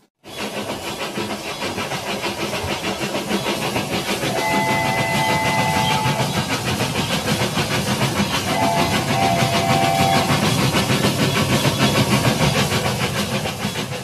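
Battery-powered toy steam train running on plastic track, its motor, gears and wheels making a steady clattering rumble with a steam-like hiss. It sounds two electronic whistle toots, each lasting about one and a half to two seconds, about four and eight and a half seconds in.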